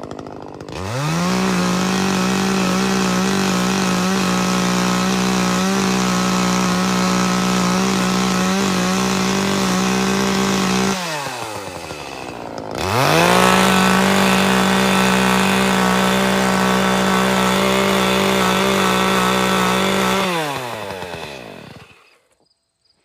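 Two-stroke chainsaw revved up from idle and held at full throttle for about ten seconds, eased back to idle, then revved again for about eight seconds before slowing and stopping near the end.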